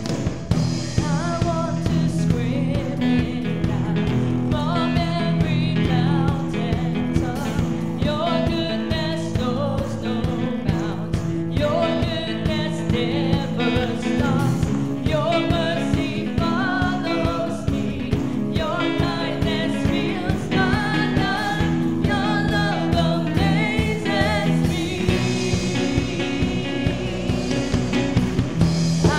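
Live worship band playing a praise song: singers with microphones lead the melody over guitars, bass and a drum kit with a steady beat.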